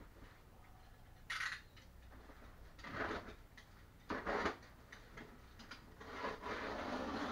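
Plastic wrapping and packing tape on a tall cardboard guitar box being pulled at by hand, giving irregular bursts of rustling and crinkling: a short one about a second in, stronger ones around three and four seconds in, and a longer stretch near the end.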